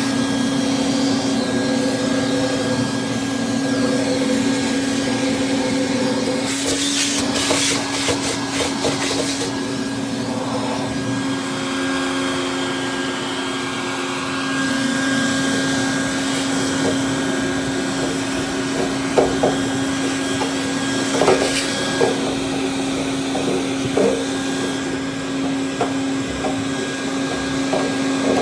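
Small vacuum running with a steady hum as it sucks lint out from inside a clothes dryer's cabinet. About seven seconds in there are a few seconds of rattling, and occasional knocks follow later.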